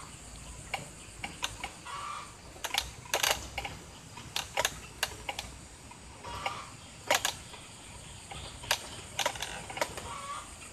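Irregular sharp clicks and knocks, about one or two a second, with a few faint short calls in the background.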